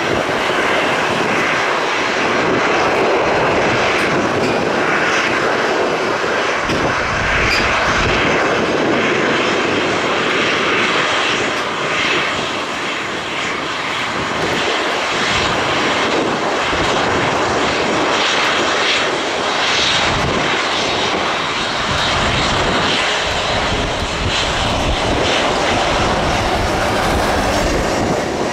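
Boeing 737-800's CFM56-7B jet engines running at taxi power, a steady loud rush, as the airliner turns onto the runway and rolls slowly along it.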